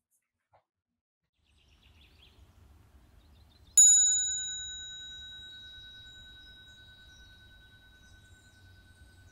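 A small bell struck once about four seconds in, ringing on as a steady tone that slowly fades. Before the strike, a faint outdoor background with a few soft bird chirps.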